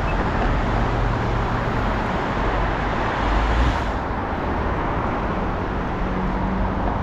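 Steady road traffic noise: cars driving past on a multi-lane street, a continuous rush of tyres and engine hum.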